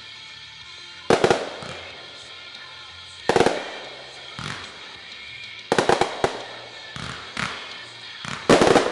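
Fireworks bursting in a string of sharp bangs every second or two, each trailing off, with a rapid cluster of bangs near the end. A rock song plays steadily underneath.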